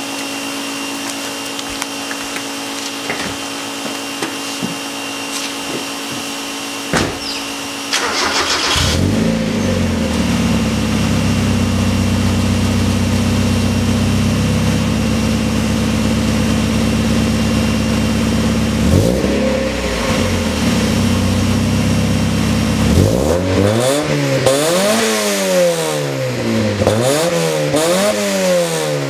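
NA Mazda Miata four-cylinder with a Borla exhaust, header and catalytic converter: a steady hum for the first several seconds, then the engine is cranked and catches about eight seconds in, flares and settles to a steady idle. It is blipped once, then revved up and down about five times in quick succession near the end.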